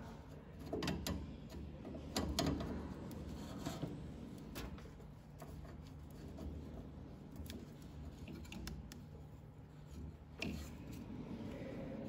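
Scattered clicks, taps and rubbing of hard objects being handled, over a steady low hum. The clicks are densest in the first few seconds and again about ten and a half seconds in.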